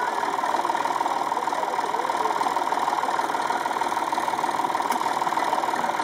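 Tractor engine idling steadily.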